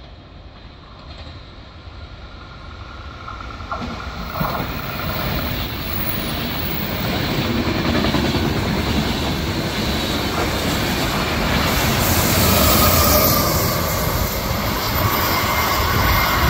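Intercity passenger train passing at speed, its wheels clattering over the rails. The sound builds over the first eight seconds as it approaches, then stays loud, with a thin wheel squeal in the second half.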